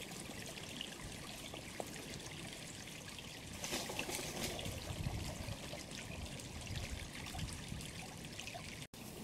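Shallow river water trickling and flowing steadily.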